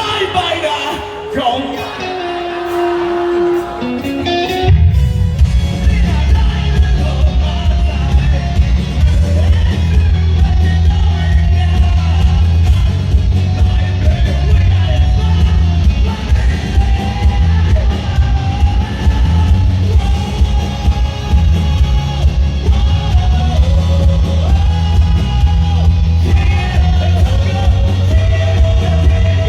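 Live band music with singing, played loud through a concert sound system; a heavy bass and drum beat comes in about four and a half seconds in and carries on.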